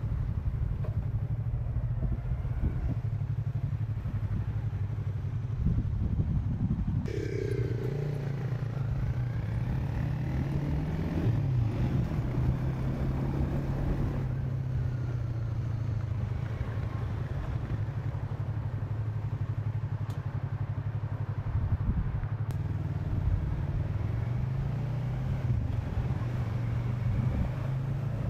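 Yamaha YZF-R6 inline-four engine with an Akrapovič exhaust, running continuously as the motorcycle is ridden. Its note climbs and drops with throttle and gear changes, about a third of the way in and again near the end.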